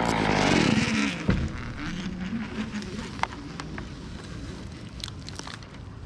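Chainsaw winding down from full throttle to a low idle over the first second or so, then idling quietly, with scattered sharp clicks and snaps.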